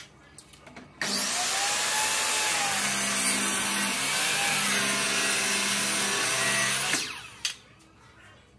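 An electric power tool running for about six seconds, starting suddenly about a second in and winding down near the end, followed by a short knock.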